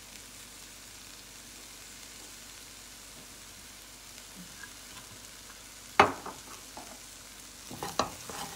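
Rice and vegetables frying in a stainless steel pot with a faint, steady sizzle, broken by one sharp knock about six seconds in. Near the end a wooden spoon starts stirring and scraping the rice around the pot.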